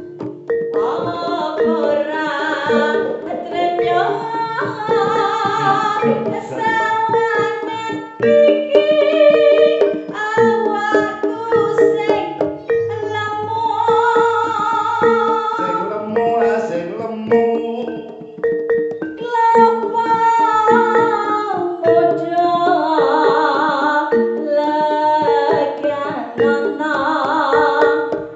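Jaranan music: a woman singing a winding melody over a fast, repeating ostinato of struck notes.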